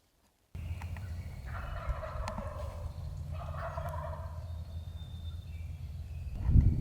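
Wild turkey gobbling twice, at about one and a half and three and a half seconds in, over a steady low rumble that grows louder near the end.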